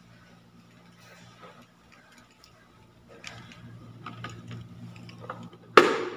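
Bare feet stepping onto a glass digital bathroom scale on a tiled floor: faint ticks and taps over a low steady hum, then one sharp knock near the end.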